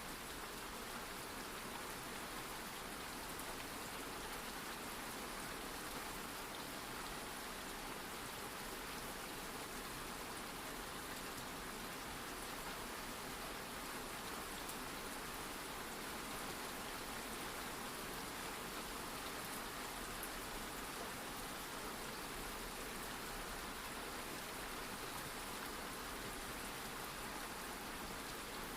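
Steady rain falling, an even continuous patter with no change in strength.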